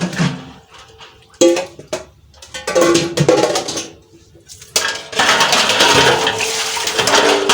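Dishes and pots clattering and clinking, in sudden bouts about a second and a half apart, then clattering steadily from about five seconds in.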